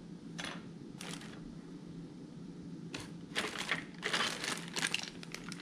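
Plastic bags of kit parts crinkling and rustling as they are handled and pushed around on a table. There are a few short crackles at first, then a longer run of rustling from about three and a half seconds in.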